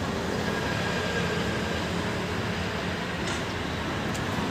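Steady low rumble of city background noise, with a faint hum underneath.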